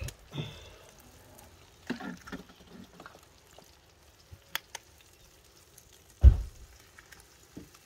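Sujuk slices and eggs frying faintly in a pan on a portable gas stove, with eggs being cracked into the pan as a few sharp clicks. A single loud low thump comes about six seconds in.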